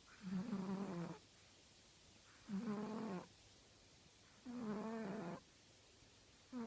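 An old pet snoring in its sleep: a steady run of snores, each about a second long, one every two seconds.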